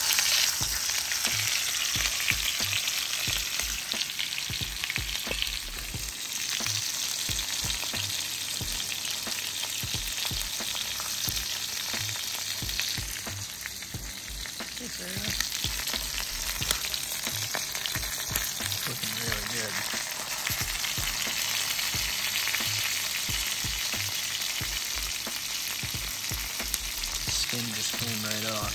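A whole scaled and gutted manini (convict tang) sizzling as it fries in hot oil in a pan. A steady, dense frying hiss starts suddenly, dips briefly around the middle, then carries on.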